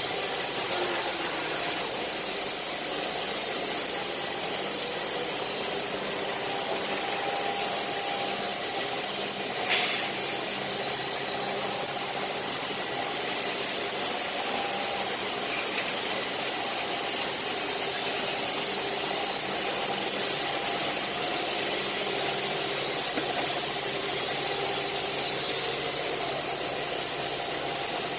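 Industrial machinery running steadily: a constant hum and hiss with faint steady tones, broken once by a brief sharp clank about ten seconds in.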